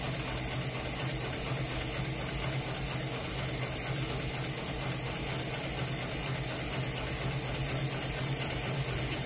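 HighTex 71008R heavy-duty automatic bar-tacking sewing machine stitching two climbing ropes together: a steady machine hum with a quick, even rhythm of needle strokes.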